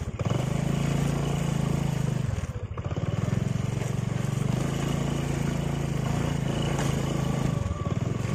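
Small motorcycle engine running under load while riding over a soft, rutted peat-mud track. The engine note eases off briefly about two and a half seconds in and again near the end, then picks up.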